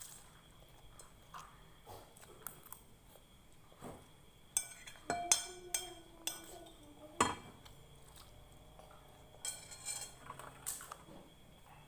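Cutlery clinking against a plate or bowl while eating. Sharp clinks come in a cluster about halfway through, one leaving a brief ring, and a few more follow near the end.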